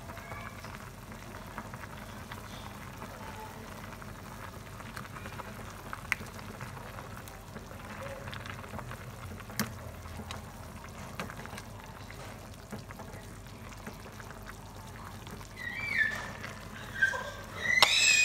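Metal ladle scooping broth and noodles from a simmering stainless steel pot of soup, with liquid pouring and a few sharp clinks of the ladle against the pot. Near the end come a few short high calls.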